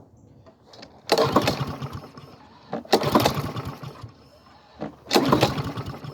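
Honda auto-choke lawn mower engine pull-started three times, each pull cranking it over in a short noisy burst that fades without the engine catching. It sounds like it wants to start but does not run.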